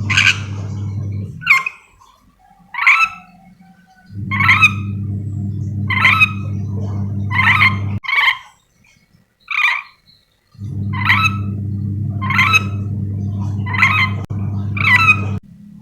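Nuri dora lorikeet giving its contact call: short, harsh screeches repeated about once every second and a half, about a dozen in all. A low, steady hum runs under the calls, cutting in and out several times.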